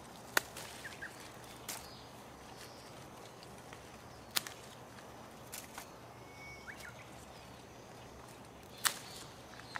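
Garden scissors snipping through echinacea flower stems: three sharp clicks about four seconds apart, with a few fainter clicks and rustles of handled stems between.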